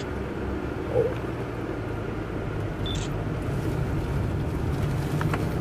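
Car cabin noise while driving at low speed: a steady low hum from the engine and tyres on the road. A brief high tone sounds about three seconds in.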